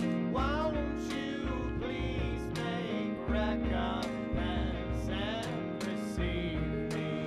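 Background song with acoustic guitar and a singing voice, cutting off at the very end.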